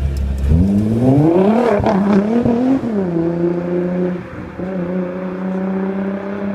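Nissan GT-R's twin-turbo V6 accelerating hard away: the engine note climbs, breaks briefly at a gear change, climbs again, then drops at about three seconds to a steady drone as the car runs on down the road.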